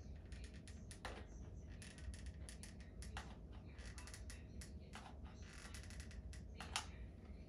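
Hot glue gun being worked along aluminium mesh in a plastic drawer: quiet, irregular clicks and creaks from the trigger feed and the handled plastic and mesh, over a steady low hum.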